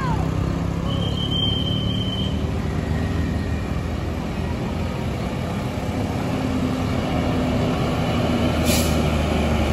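Tour bus diesel engine running steadily, growing louder toward the end, with a short high whistle about a second in and a brief hiss near the end.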